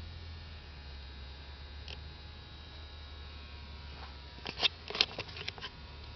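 Steady low hum of water-treatment equipment running, with faint steady whine tones over it. A quick run of sharp clicks comes between about four and a half and five and a half seconds in.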